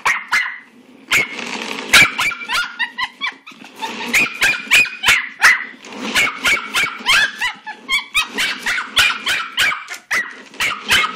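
Small Jack Russell–Pomeranian mix puppy barking excitedly at a spinning toy, in quick runs of short, high yaps, about two or three a second.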